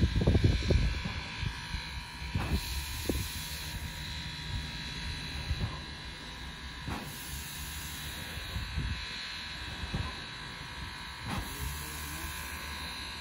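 Steam locomotive standing with steam up: a steady hiss and a low buzzing hum, with scattered short knocks, the loudest cluster in the first second.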